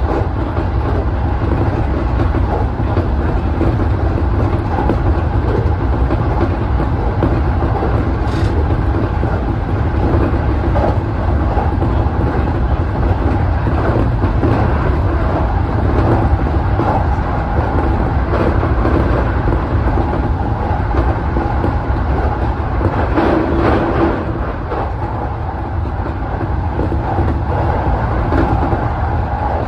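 JR East E233 series electric commuter train running at speed: a steady, loud rumble of wheels on rail with the train's running hum, heard from inside the leading car.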